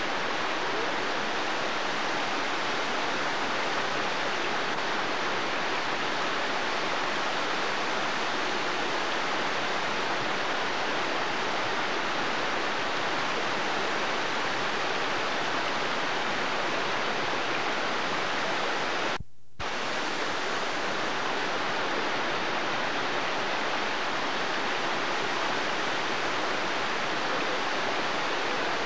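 Steady rushing of water tumbling down a rocky cascade. The sound drops out for about half a second, with a click, two-thirds of the way through.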